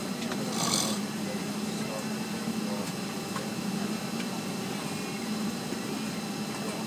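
A man snoring in an airliner seat against the steady hum of the jet cabin in flight, with a short hiss a little under a second in.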